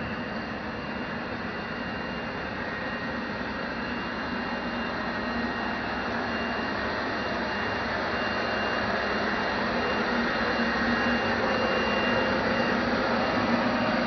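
Steady rushing hum of the space station's cabin ventilation fans and equipment, with a few faint steady whines, slowly growing louder.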